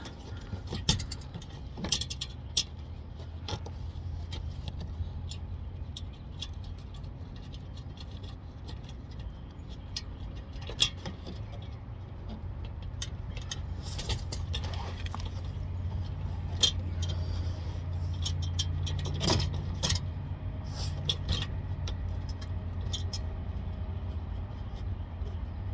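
Scattered light metallic clicks and clinks of bolts and hand tools being handled while a skid plate's fasteners are refitted, over a steady low hum.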